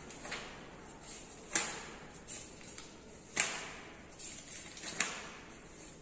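Five sharp taps at irregular intervals, the loudest about a second and a half and three and a half seconds in, each with a brief ring of room echo.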